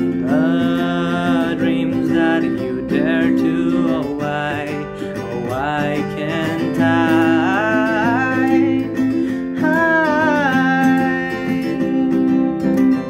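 Capoed acoustic guitar strummed in a slow, steady pattern, with a man singing long, gliding notes over it; the voice drops out near the end, leaving the guitar.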